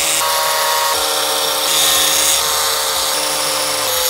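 Small handheld corded power cutting tool running steadily while it cuts through a thin plastic cutting board, its whine shifting slightly in pitch a few times.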